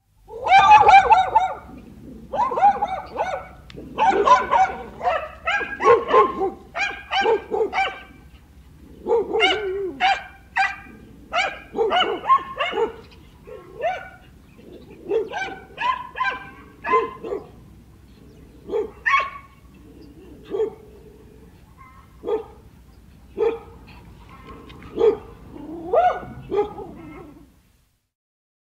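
Two dogs barking at irregular intervals, in quick runs at first and then more sparsely, some barks deeper and some higher, over a faint low hum. The barking stops a little before the end.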